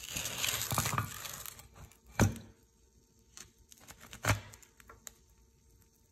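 Crackling and rustling for about a second and a half, then two sharp knocks about two seconds apart. The knocks are a board being set down on the bench under the induction heater's glowing work coil.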